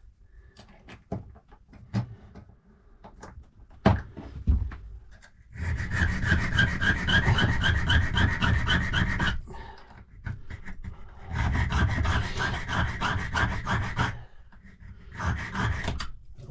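Hand file rasping across a safe key blank, taking a lever step down a tiny bit. A few light handling clicks come first, then three runs of quick strokes at about five a second, the longest starting about five and a half seconds in.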